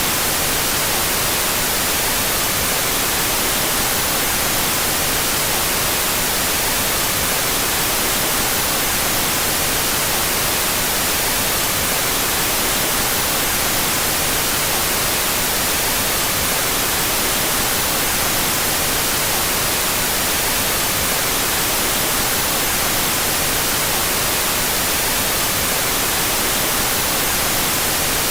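Synthetic white noise with its two stereo channels out of phase, a steady even hiss across all pitches, strongest in the highs, with no change at all.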